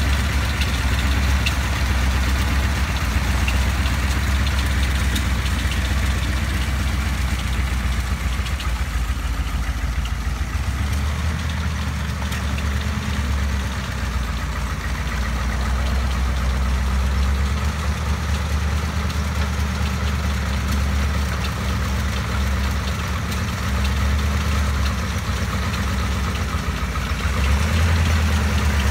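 Newly built Ford flathead V8 in a 1930 Ford Model A roadster, running at low, steady revs on its first run as the car creeps along, a deep rumble; it grows a little louder near the end as the car passes close.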